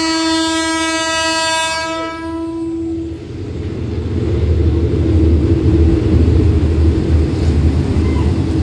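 Diesel locomotive's horn sounding one long blast that stops about three seconds in, then the low rumble of the locomotive's engine growing louder as it pulls into the platform.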